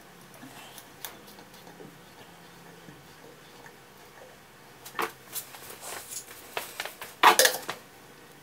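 Steel eye hook being screwed into a pre-drilled wooden ceiling joist: light metallic clinks and scrapes as it turns, with a cluster of louder clicks and scraping about five to seven and a half seconds in.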